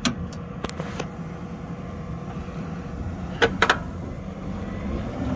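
Tractor diesel engine running steadily while towing, with a few sharp clunks in the first second and a double knock about three and a half seconds in.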